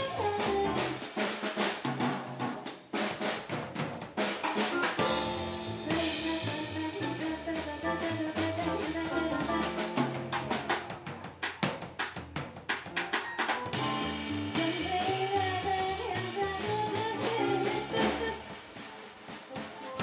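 Live jazz band playing, the drum kit busy with snare, rimshots and bass drum, over upright double bass and electric keyboard.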